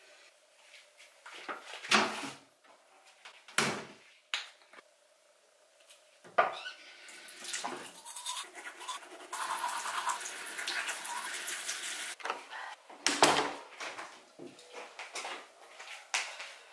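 Knocks and clatters of items being handled in a small bathroom, with a stretch of steady hissing noise in the middle lasting several seconds, then another loud knock near the end.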